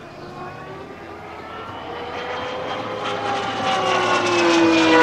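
RC scale model Embraer T-27 Tucano flying by, its engine and propeller whining. The sound grows steadily louder as the model approaches, and its pitch starts to drop near the end as it passes.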